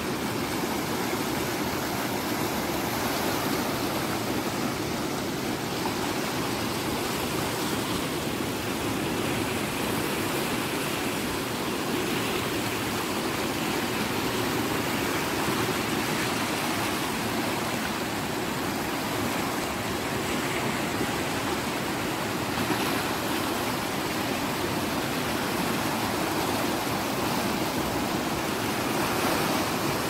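Swollen river in flood rushing and churning, its fast brown water boiling up in swirls and foam, a steady, unbroken rushing noise.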